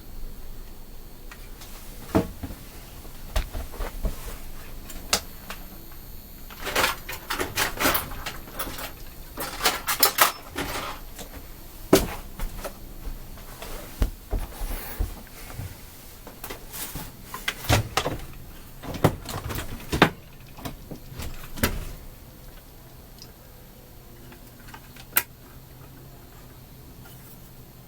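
Hand tools and small metal parts clicking, knocking and rattling on a workbench as a chainsaw is taken apart to remove its carburetor. The handling comes in irregular clusters, busiest in the middle, then quietens near the end.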